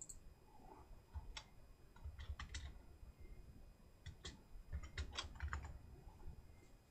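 Faint typing on a computer keyboard: short runs of keystrokes in a few separate clusters, as a short text label is typed in.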